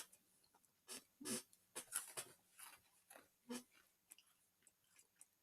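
Faint chewing and crunching of a crisp butter waffle cookie: a handful of short, soft crackles in the first few seconds, then near silence.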